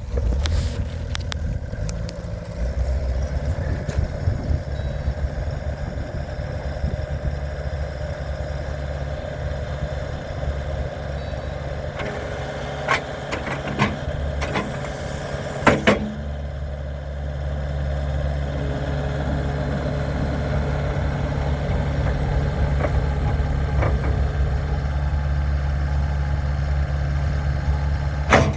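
Kubota SSV75 skid steer loader's diesel engine running steadily, with a few sharp clicks and a brief hiss about halfway through. It runs a little louder for the last ten seconds or so.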